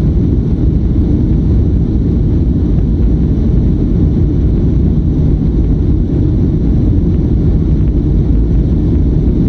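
Steady low rumble of a Boeing 737-500's jet engines and rolling wheels, heard from inside the cabin over the wing as the airliner moves along the runway.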